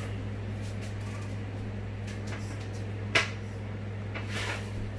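Kitchen handling sounds over a steady low hum: a single sharp knock a little after three seconds in and a brief rustle near the end.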